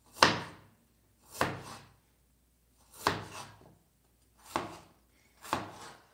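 Cleaver chopping food on a cutting board: five separate, deliberate chops, roughly one to one and a half seconds apart.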